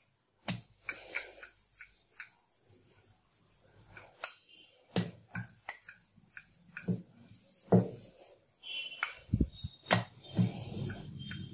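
Wooden rolling pin rolling out a disc of maida dough on a round board: rubbing as the pin rolls, with irregular knocks of wood against the board as the pin is set down and lifted and the dough is turned.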